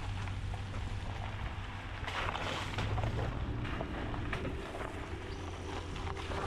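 Wind rumbling on the microphone over water noise from a kayak on the water, with a few brief sharp sounds along the way.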